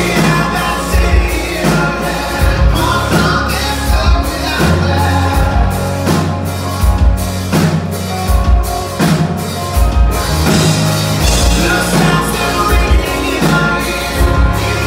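A live rock band playing: distorted electric guitars, electric bass and a drum kit keeping a steady beat, with a male lead vocal singing over it.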